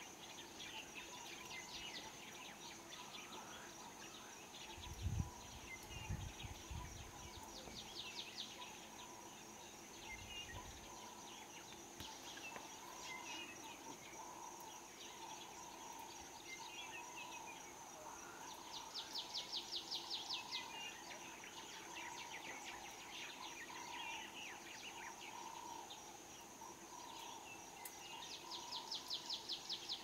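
Bush ambience: insects chirring steadily with scattered bird chirps, and twice a fast pulsing trill, near the middle and again near the end. A few low thumps early on-the loudest of them about five seconds in-break through.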